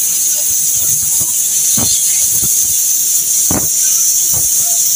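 Oxygen-and-gas cutting torch hissing steadily as it cuts through a steel pipe pile, with a few sharp pops at irregular intervals.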